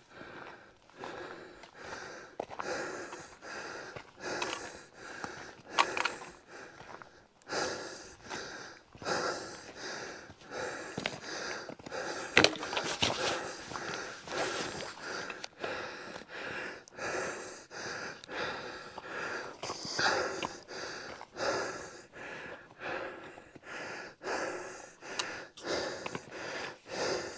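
A hiker breathing hard and panting, short heavy breaths about one a second, from the effort of a steep climb near the summit.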